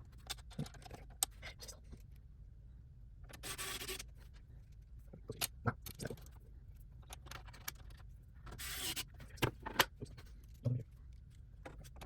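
Scattered small clicks and metallic clinks of hardware being handled while fitting a motherboard into a PC case, with two short scraping or rustling bursts, about three and a half and nine seconds in.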